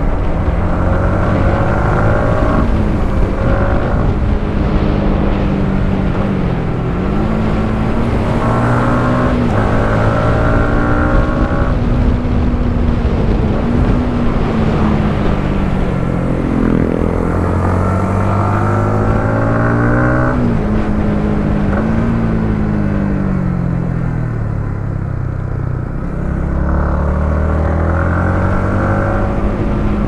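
Yamaha MT-15's 155 cc single-cylinder four-stroke engine heard from the rider's seat, pulling through the gears: the pitch climbs and drops sharply at each shift, falls away as the bike slows in the latter half, then climbs again near the end.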